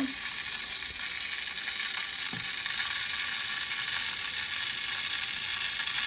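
Liberty Pumps Sump Jet SJ10 water-powered backup sump pump running, a steady hiss of pressurised mains water rushing through it as it pumps down the sump pit. The float has switched it on, and it is keeping up with the inflow.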